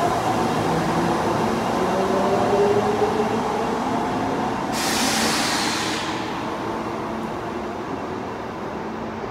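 Osaka Metro 22 series subway train pulling away. Its motors whine in gliding tones over the rumble of the wheels, with a short burst of hiss about five seconds in, and the sound slowly fades.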